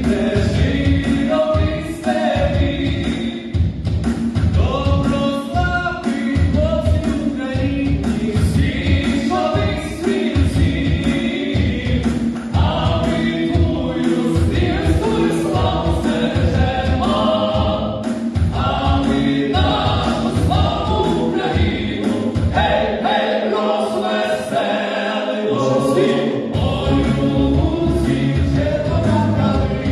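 A song with singing and choir-like voices over an instrumental backing with a steady beat; the bass drops away briefly about three-quarters of the way through.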